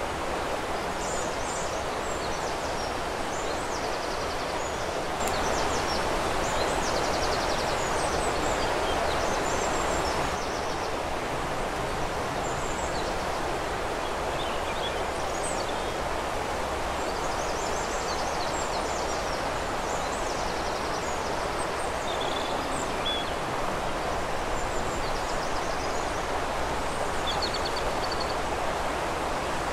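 Steady rush of flowing river water with small songbirds chirping and trilling over it in short, high twittering phrases.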